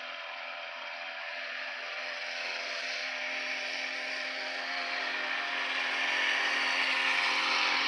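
A vehicle passing on the street: tyre hiss and engine hum grow steadily louder, peak near the end, then drop away.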